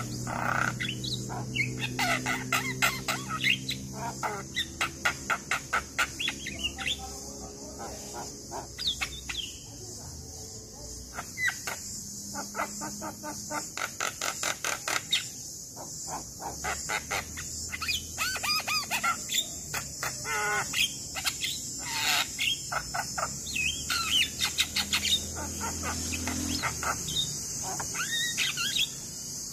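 Javan myna singing: fast rattling runs of harsh repeated notes mixed with short whistles and chatters, over a steady high hiss.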